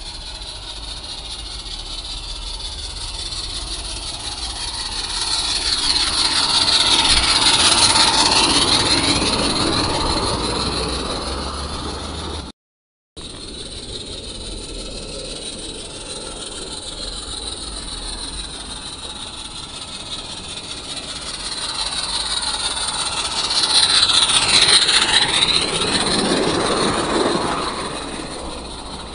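A garden-railway model train passing close by on its track, twice. Each time the running sound builds to a peak and then fades away as it goes past.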